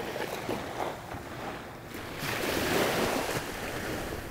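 Small waves breaking and washing up the sand at the shoreline, one wave swelling louder about two seconds in.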